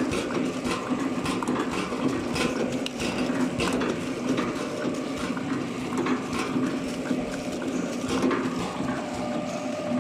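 Horizontal flow-pack packaging machine running, a steady hum under irregular mechanical clicks and clacks.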